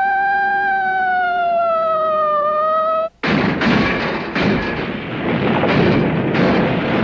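Cartoon sound effects: a high, slowly wavering electronic tone for about three seconds that cuts off abruptly, then, after a split-second gap, a loud crashing rumble with repeated impacts as a police car tumbles down a cliff.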